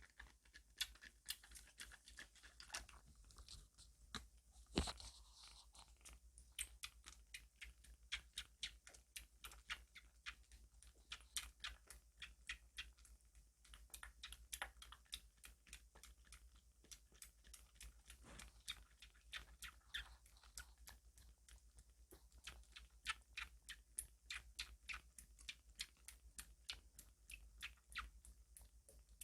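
Kitten eating milk formula, its mouth making quiet, quick smacking clicks at about four a second, with one louder knock about five seconds in.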